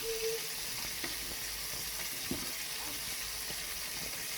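Onions sizzling in hot oil in a pot of sauce on the stove: a steady frying hiss, with a few light knocks.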